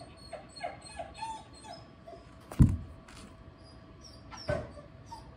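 Border collie whining in a run of short, squeaky, falling whimpers through the first two seconds. Two dull thumps, a loud one about two and a half seconds in and a softer one near the end.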